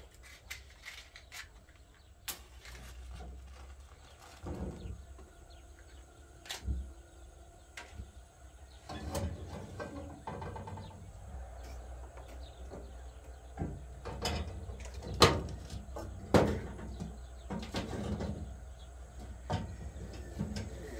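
Irregular knocks and clicks of objects being handled over a low steady rumble, with the sharpest knock a little past the middle.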